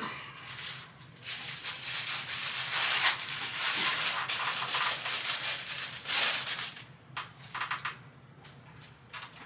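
Rustling and rattling of parts and packaging being handled for several seconds, with a few sharp clicks before and after.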